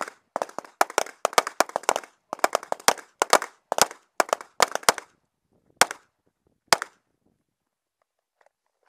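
Glock 19 9mm pistol firing in fast strings of shots, several a second, for about five seconds. Two single shots follow about a second apart, and the firing stops about seven seconds in.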